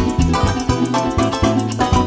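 Llanero joropo music led by a harp: fast runs of plucked notes over a driving beat from the accompanying band.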